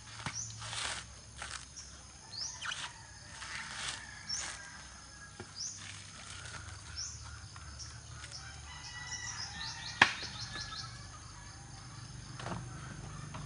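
Coconut husk being ripped off a husking spike, several rough tearing strokes in the first few seconds. A bird's short rising chirps repeat throughout, and a single sharp crack about ten seconds in is the loudest sound.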